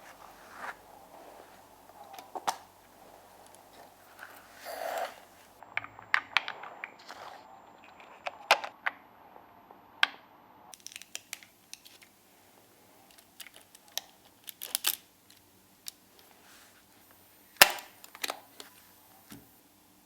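Olympus OM-2 35mm SLR being operated by hand: a series of sharp mechanical clicks and snaps from its shutter, mirror and controls at uneven intervals, with a short rasping sound about five seconds in and the loudest click near the end.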